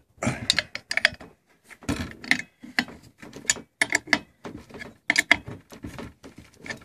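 Ratchet wrench clicking in runs of quick clicks with short pauses between, as the bolt and lock nut on an angle grinder's mounting bracket are tightened down.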